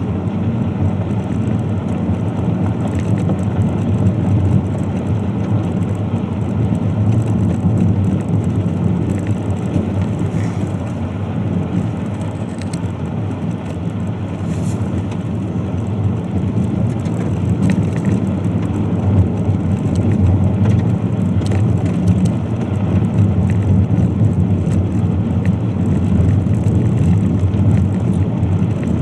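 Car driving on a gravel road, heard from inside the cabin: a steady low rumble of engine and tyres on gravel, with a few faint sharp ticks.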